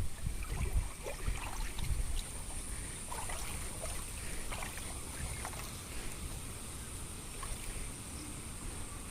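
Water sloshing with small splashes and knocks, strongest in the first two seconds, over a steady high hiss.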